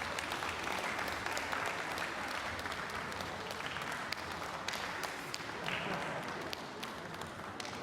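Audience applauding, a dense patter of claps that thins and fades near the end.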